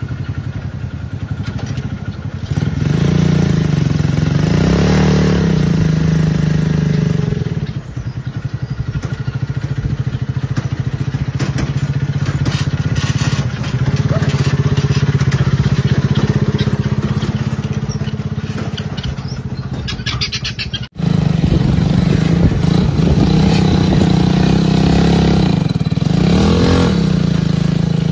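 Small engine of a miniature Massey Ferguson 385 tractor running under way, with a steady low firing beat. It gets louder about two and a half seconds in, and cuts out for an instant about 21 seconds in before picking up again.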